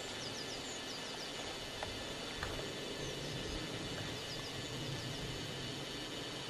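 Faint, high, short falling chirps of small birds, in a few quick runs, over a steady hiss.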